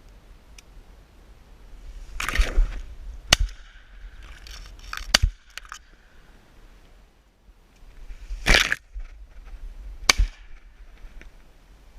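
Two loud shotgun blasts about six seconds apart, with several sharp metallic clicks and knocks between them, typical of a break-action shotgun being handled.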